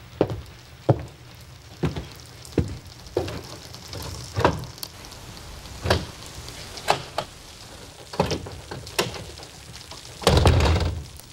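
Steady rain with a run of sharp knocks and rattles from a glass shop door and its locks as it is worked from inside. A louder rattle lasting about a second comes near the end.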